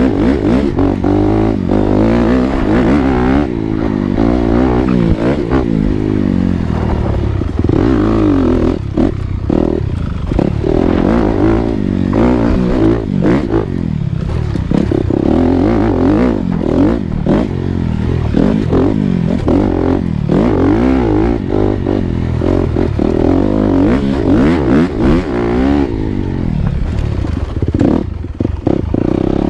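Dirt bike engine revving up and down over and over while riding, with frequent knocks and clatter from the bike going over rocky ground.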